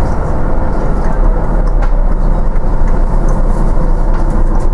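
Inside a moving Volvo B9TL double-decker bus: the six-cylinder diesel engine running steadily under a continuous low road rumble.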